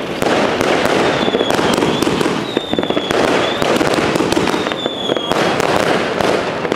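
Rubro Golden Tarantula 140-shot fireworks cake firing fast: a dense, unbroken string of shots and crackling bursts, with short high-pitched tones every second or two.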